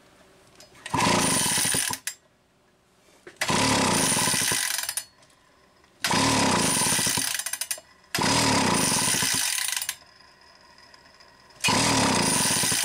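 Recoil starter of a Homelite 350–750-series chainsaw pulled five times, each pull about a second long with a slightly falling pitch, cranking the engine over without it running. The cranking spins the flywheel past the ignition coil so that the multimeter can read its small output voltage.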